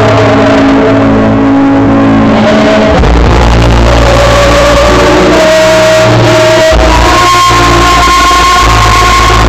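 A female singer performing a solo song into a microphone over a loud backing track played through a PA, holding long notes.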